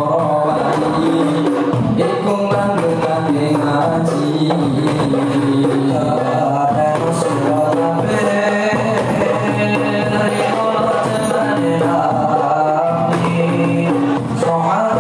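Rebana frame drums beating a steady rhythm under group singing of a devotional song.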